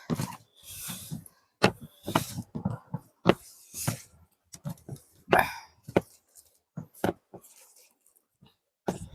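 Close-miked mouth sounds of eating biryani and chicken curry: chewing with a quick, irregular series of sharp smacks and clicks.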